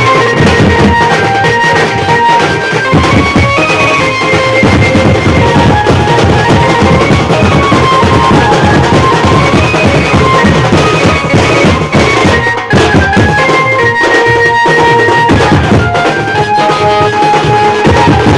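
A Maharashtrian benjo band playing a loud, fast folk beat: dense drumming under a melody of short, stepped notes.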